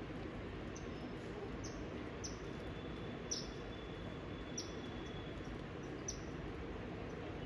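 A small bird giving short, high chirps that sweep downward, about five at irregular intervals, with a faint thin whistle in the middle. A steady low outdoor background noise lies underneath.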